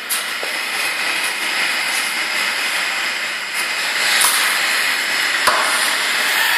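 Nile monitor lizard giving a long, steady defensive hiss while it is prodded with a broom handle. A few sharp knocks, likely the stick striking the tile floor.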